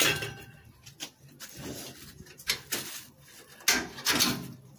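Irregular knocks and rattles of a wire-mesh kennel door being handled. The loudest is a sharp knock right at the start that dies away over about half a second.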